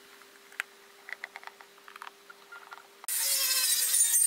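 Faint clicks and taps of a screwdriver working in a plastic switch box, then, about three seconds in, an angle grinder on a steel frame cuts in abruptly, loud and high-pitched.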